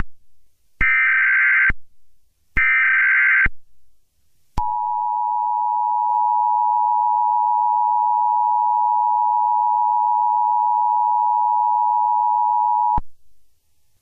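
Emergency Alert System header: short harsh data bursts of the SAME digital code, the end of one and then two more, each just under a second long. After a brief gap comes the steady two-tone EAS attention signal, held about eight seconds and cutting off abruptly. Together these announce the start of an emergency alert broadcast, here a flash flood warning.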